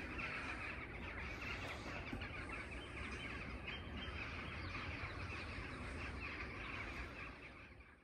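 A large flock of geese calling in flight overhead, many overlapping honks merging into a steady chatter. The sound fades out near the end.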